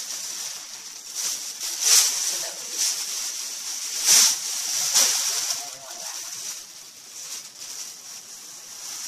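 Rustling and crinkling of packaging being handled, with three louder crinkles about two, four and five seconds in, over a steady hiss.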